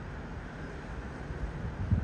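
Boeing 777-300ER's twin GE90 turbofan jet engines giving a steady rumble as the airliner passes low overhead. A gust of wind thumps the microphone near the end.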